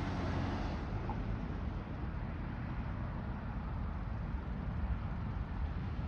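Steady low outdoor rumble of road traffic, with no distinct events.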